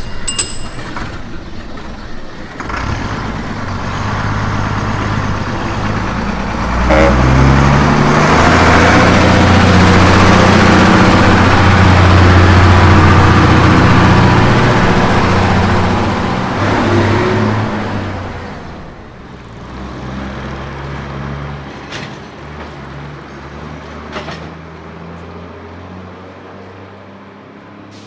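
Bus engine and road noise during a drive. The bus accelerates hard about seven seconds in and runs loud for several seconds, then eases off and slows. A few sharp clicks come near the end.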